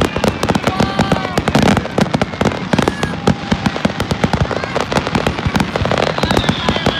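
Fireworks display in a dense barrage: rapid, irregular bangs and crackling of shells bursting one over another, with no let-up.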